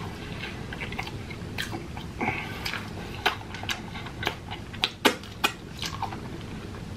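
Close-miked chewing of soft, greasy KFC french fries, with irregular sharp wet mouth clicks.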